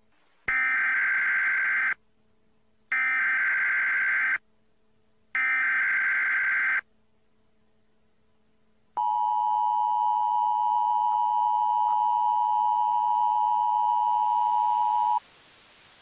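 Emergency Alert System header: three bursts of buzzy digital data tones, each about a second and a half long. After a two-second pause comes the two-tone EAS attention signal, a steady dual tone that lasts about six seconds and cuts off abruptly.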